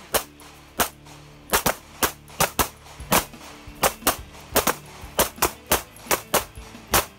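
Handgun shots fired one after another at an uneven pace, about eighteen in seven seconds, some in quick doubles. This is a shoot-while-moving drill following a tap-rack malfunction clearance.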